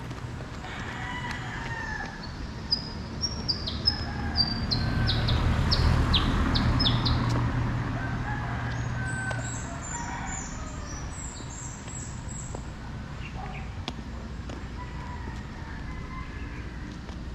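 Roosters crowing and small birds chirping in quick, high notes. A vehicle's engine hum swells and fades near the middle and is the loudest sound.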